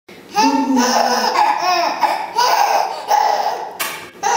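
Five-month-old baby belly-laughing, several loud high-pitched peals with brief pauses between.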